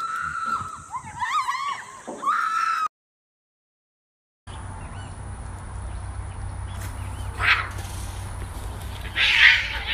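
A person screaming in wavering high-pitched cries while falling on a bungee cord, cut off abruptly about three seconds in. About a second and a half of silence follows, then a steady low rumble with two short noisy bursts.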